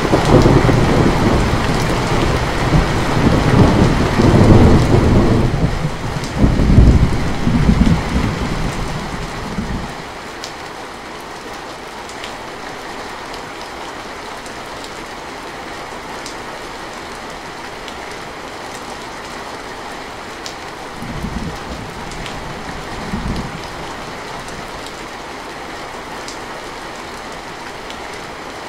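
Heavy rain falling steadily on a metal roof, with a long, loud roll of thunder that swells twice and fades out about ten seconds in. Later come two brief, fainter rumbles of thunder.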